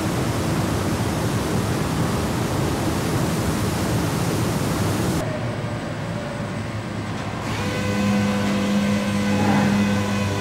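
Steady rushing air noise of a car-plant paint booth's ventilation. About five seconds in it cuts off sharply to a quieter factory background, and a couple of seconds later a steady hum of several fixed tones comes in.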